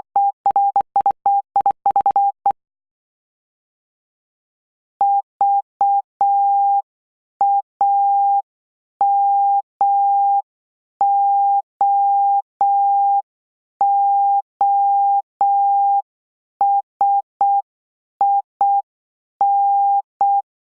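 Morse code sent as a single-pitch beep keyed on and off: a fast run of dots and dashes for the first couple of seconds, a pause, then slower, evenly spaced dots and dashes for copying practice.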